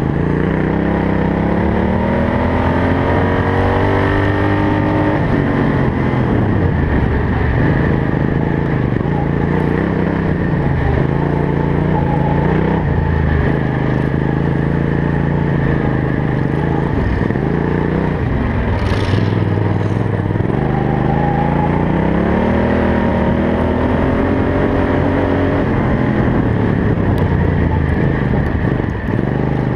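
Racing ride-on lawn mower's engine heard on board at full race pace, revving up in long rising sweeps along the straights and dropping back off into the corners. A brief hiss cuts in a little past halfway.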